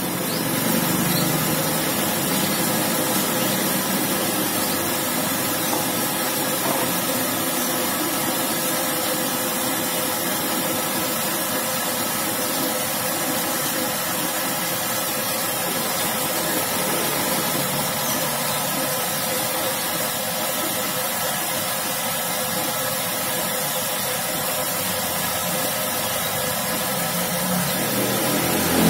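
Gas stove burner running steadily under a wok of cooking oil being heated: a continuous, even rushing noise.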